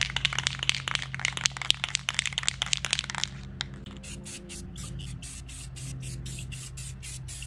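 Aerosol can of Rust-Oleum 2X Ultra Cover spray paint: for about three seconds a dense, irregular rattle of sharp clicks, then from about four seconds in a quick series of short spray hisses, about three a second.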